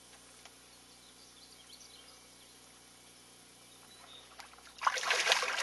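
An arrowed alligator gar thrashing at the surface right beside a canoe: a sudden loud burst of splashing near the end, after a few seconds of faint water sounds.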